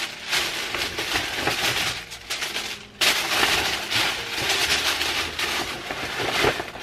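Tissue paper crinkling and rustling as it is handled and pressed into a paper gift bag, in irregular bursts that get suddenly louder about three seconds in.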